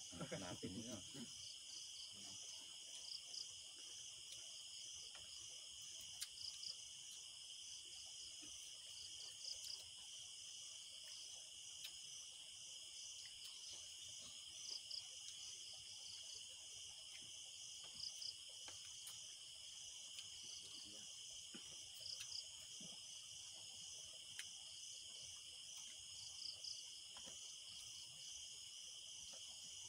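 Steady chorus of night insects such as crickets: several high-pitched trills, one pulsing in a fast repeating pattern, with a few faint short sounds every few seconds.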